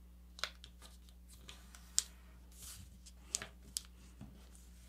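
A sheet of paper being folded and creased by hand: soft rustling with a few short, sharp ticks as the fold is pressed flat.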